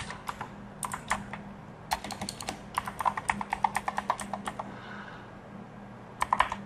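Typing on a computer keyboard: uneven runs of quick key clicks, the longest from about two to four and a half seconds in and a short flurry near the end, as a username and password are keyed in. A faint steady hum lies underneath.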